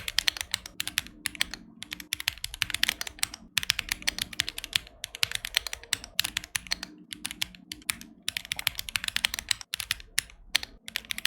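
Rapid typing on a mechanical keyboard: a fast, uneven run of key clacks with brief pauses between bursts.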